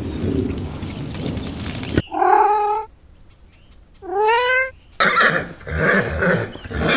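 Domestic cat meowing twice, a wavering meow about two seconds in and a rising one about four seconds in. A rougher, repeated animal call follows near the end, after a stretch of scuffing noise at the start.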